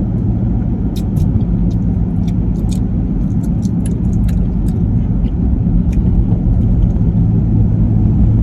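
Car interior road and engine noise while driving: a steady low rumble, with faint scattered clicks now and then.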